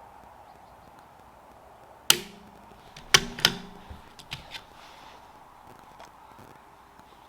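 Bolt of a CZ .22LR bolt-action target rifle being worked between shots: three sharp metallic clacks about two seconds in, then a few lighter clicks as the next round is handled.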